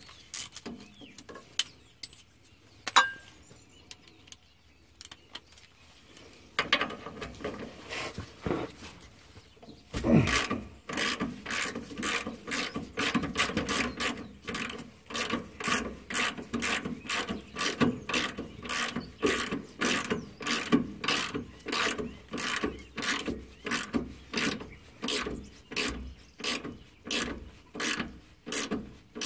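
Hand ratchet with a socket clicking as it turns the nut on a rear shock absorber's lower mounting stud. For the first ten seconds there are only scattered light clicks as the tool is handled and the nut is started. From about ten seconds in the ratchet is worked steadily at about two strokes a second.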